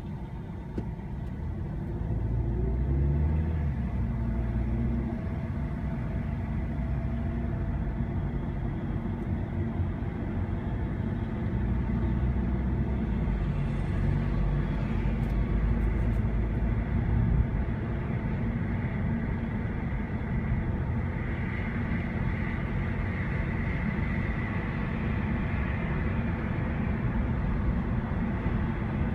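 Engine and road noise heard from inside a car's cabin: a steady low rumble that grows louder as the car pulls away from a stop about two seconds in, then runs on at cruising speed.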